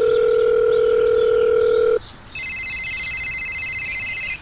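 Two steady electronic tones: a lower beep held for about two seconds, then, after a brief gap, a higher, shriller tone of several notes at once held for about two seconds.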